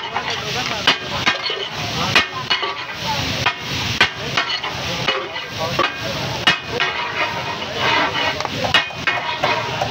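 A metal spatula clacks and scrapes against a flat tawa griddle as fried fish is chopped and tossed for katakat, over a steady sizzle. The sharp clacks come irregularly, about once or twice a second.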